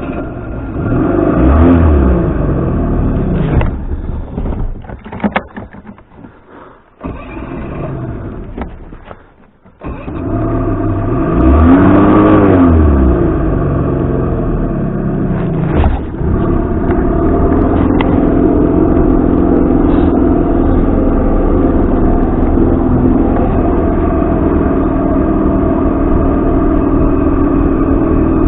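Hard-starting outboard motor: it revs and falls back, then stumbles and nearly dies for several seconds. About ten seconds in it catches, revs up, and settles into steady running. The starting fault has persisted despite rebuilt carburettors and a new trigger and stator.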